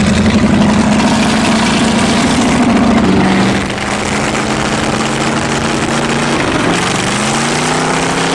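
Carbureted car engine running on choke just after a cold start, having sat parked through the winter. Its speed sags about three and a half seconds in and picks up again near the end.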